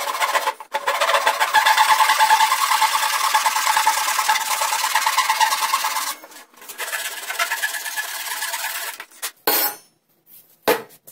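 Handsaw cutting through a wooden block in quick back-and-forth strokes, cutting away waste material, with a brief pause about six seconds in before the sawing resumes. The sawing stops about nine seconds in, followed by a couple of knocks of wood near the end.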